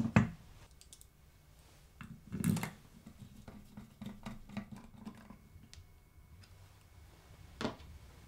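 A plywood base plate set onto a compact router with a sharp knock, then a hand screwdriver driving screws into it: a run of small clicks and creaks from about two seconds in. Near the end a single knock as the screwdriver is laid on the table.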